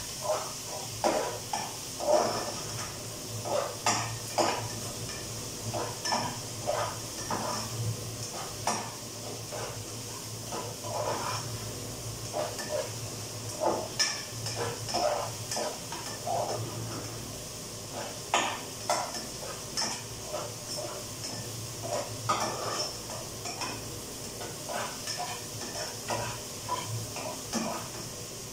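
A spoon stirring mung beans in a cooking pot, scraping and knocking against the pot irregularly, several times a second, over a steady hiss.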